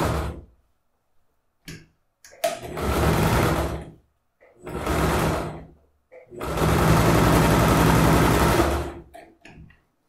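Household electric sewing machine stitching in starts and stops, topstitching along a zipper: a run cuts off just as it begins, two short runs of about a second each follow, then a longer run of about three seconds.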